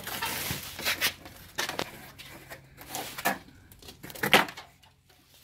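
Cardboard packaging scraping and rustling as a screen door frame is lifted out of it, in a series of short noisy scuffs, with one sharper knock about four seconds in.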